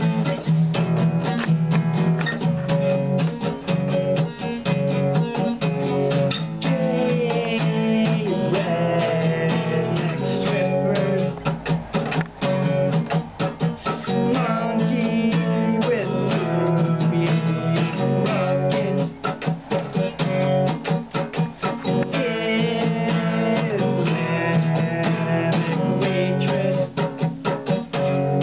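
Steel-string acoustic guitar strummed fast and steadily in a repeating chord pattern, easing off briefly a few times.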